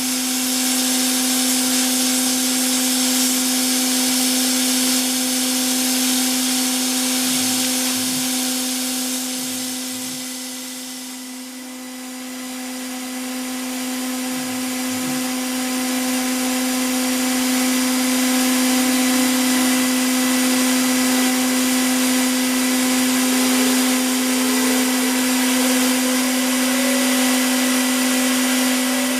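Mori Seiki MH63 oil-mist-lubricated machining spindle running on a bench test, a steady whine over a hiss, dipping briefly in loudness about a third of the way through and coming back up. The test run checks whether its bearings are still good.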